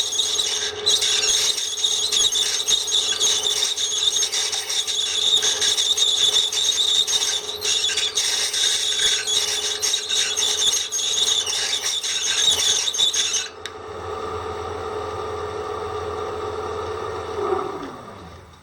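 Electric drill with a dull bit whistling shrilly as it cuts: the blunt bit rubs instead of cutting. About three-quarters of the way in, the whistle stops and the drill motor runs on alone. Near the end the motor spins down with a falling pitch.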